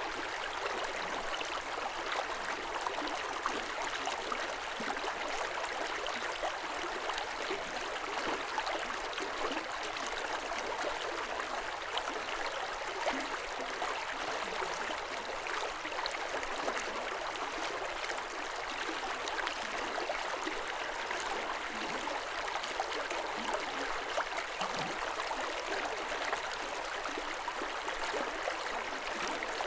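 River water running steadily over stones: a continuous splashing, burbling rush.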